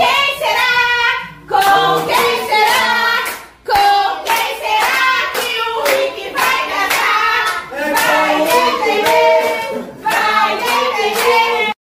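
A small group singing a birthday song together while clapping along in rhythm, with a child's voice among them. The sound cuts off suddenly near the end.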